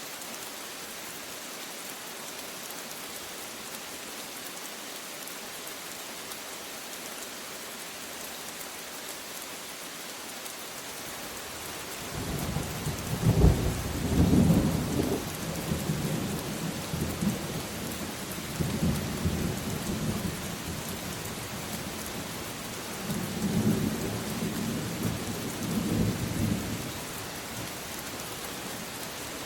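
Steady rain with a long roll of thunder that breaks in about twelve seconds in, loudest just after it starts, then rumbles on in waves to the end.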